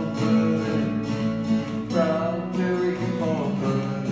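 A man singing while strumming a round-backed acoustic guitar, the strokes coming in a steady rhythm under his voice.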